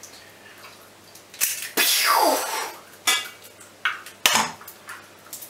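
Eggs being cracked into a frying pan of hot oil: sharp taps of shell on the pan's edge, and about two seconds in a sudden burst of sizzling as an egg drops into the oil, fading over about a second.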